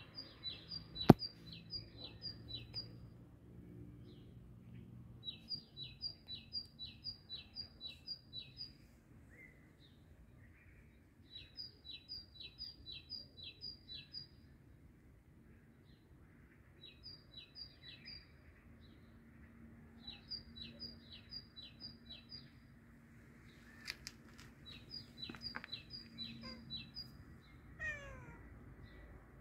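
A small bird chirping in repeated runs of six to eight short, quick high notes, about three a second, with a run every few seconds. A sharp click about a second in is the loudest sound, and near the end a cat gives a short falling meow.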